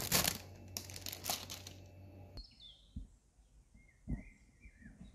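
Crinkling and crackling of a clear plastic strawberry punnet being handled, which cuts off abruptly about two and a half seconds in. Faint high chirps follow, with a single low thump about four seconds in.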